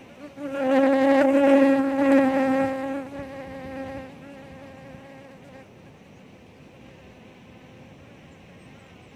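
A flying insect buzzing close to the microphone: a loud, slightly wavering buzz that starts about half a second in, holds for about three seconds, then fades away as it moves off.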